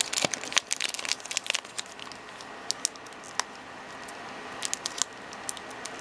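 Foil wrapper of a Pokémon TCG booster pack crinkling and tearing as it is pulled open by hand. There is a dense run of crackles over the first two seconds, then scattered single crinkles.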